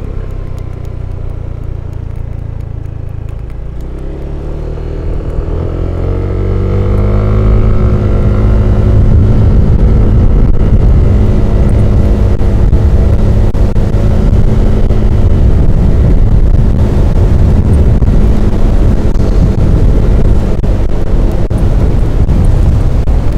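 Yamaha Aerox 155 scooter's single-cylinder engine pulling up to speed, its note rising for a few seconds early on and then holding steady while cruising, under a heavy rush of wind on the microphone.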